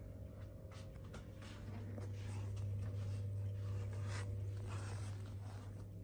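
Light rustling and scattered small clicks of things being handled and unpacked, over a steady low hum.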